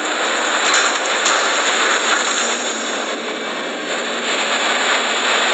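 Steady rushing noise of wind and road noise from Volvo trucks driving at highway speed.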